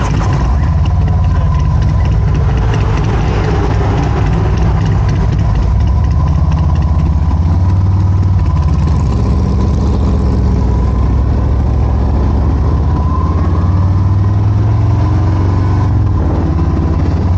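Harley-Davidson Road Glide's V-twin engine running as the motorcycle is ridden, a steady low exhaust note with road and wind noise over it.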